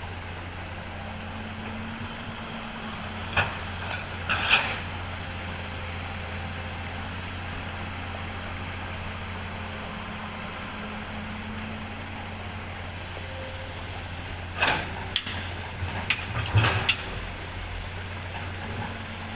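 Komatsu excavator's diesel engine running steadily while loading a dump truck, with a few sharp clanks: one about three seconds in, another about a second later, and a cluster near the end.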